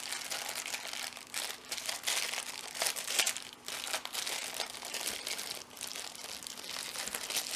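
Packaging being handled and unwrapped by hand: irregular crinkling and rustling with many short sharp crackles.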